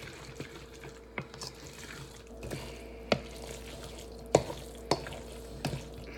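A spoon clinking and knocking against a bowl while potato salad is stirred, with a few sharp knocks at irregular moments, the loudest about four seconds in.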